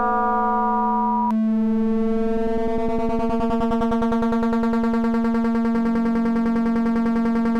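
Synthesized FM drone from the Auraglyph iPad app, built from sine oscillators modulating one another: a steady buzzy tone that changes abruptly with a click about a second in, as a newly patched oscillator is connected. From then on it pulses rapidly in an even wobble.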